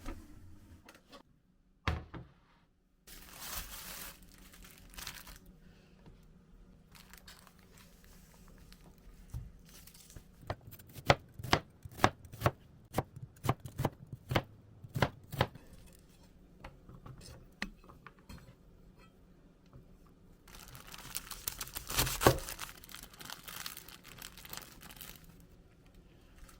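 Kitchen food preparation: a quick run of sharp knife chops on a cutting board, with scattered knocks around it, then a few seconds of crinkling, tearing packaging.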